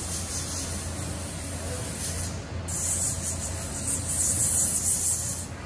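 Airbrush spraying an airbrush tattoo onto skin: a steady hiss that breaks off briefly about two seconds in, then comes back louder and stops near the end.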